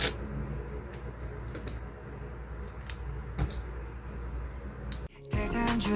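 A few sharp, scattered clicks and taps from wooden skewers and tape being handled on a table, over a steady low hum. About five seconds in it cuts off suddenly and music with singing begins.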